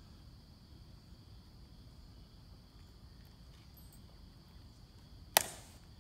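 Quiet outdoor air with a steady, faint high insect drone, broken about five seconds in by a single sharp click from the tomb guards' drill.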